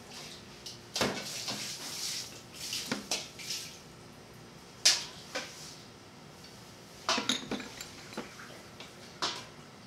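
A metal spoon scraping and clinking against small bowls and a stainless steel pot as seasoning is spooned in: scraping from about a second in, then scattered light clinks, the sharpest about five seconds in and a quick cluster near seven seconds.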